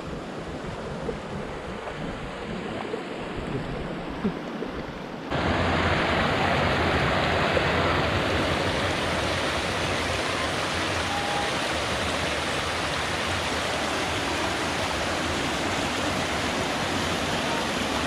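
River water rushing over rocks and small cascades, a steady hiss. About five seconds in it jumps louder and fuller, close beside a small cascade.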